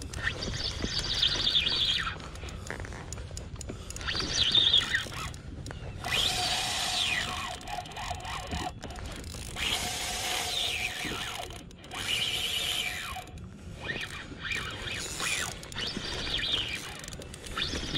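Okuma Ceymar C65 spinning reel working in irregular bursts of one to two seconds, a clicking, whirring gear sound as line is wound in while fighting a fish.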